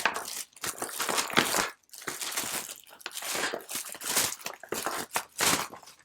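Product packaging being handled and pulled open: cardboard and plastic crinkling and rustling in irregular bursts.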